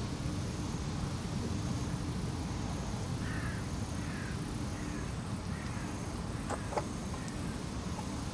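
A crow cawing faintly about four times over a steady low outdoor rumble, with two sharp clicks about two-thirds of the way in.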